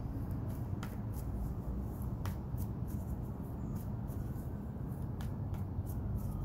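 Tarot cards being handled and pulled from the deck, a scatter of light, irregular clicks and snaps over a steady low background rumble.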